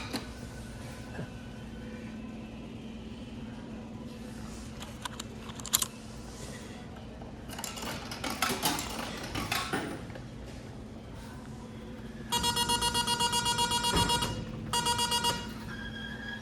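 Arcade game machine's electronic buzzer sounding in rapid pulses for about two seconds, stopping briefly, then pulsing again for under a second, followed by a short steady beep. A steady low electrical hum and a few clicks run underneath.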